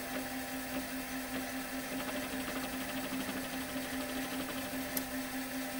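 Osborne 1's 5.25-inch floppy disk drive formatting a disk: the spindle turning with a steady hum while the head works track by track in a fast, even mechanical patter, with one sharper click about five seconds in. The drive is running properly on a spindle bearing swapped in from a donor drive after its own had seized.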